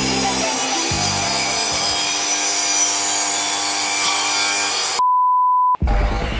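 Metabo sliding mitre saw running with a high whine as its blade cuts through a wooden beam. About five seconds in, the saw sound gives way to a steady electronic beep lasting under a second.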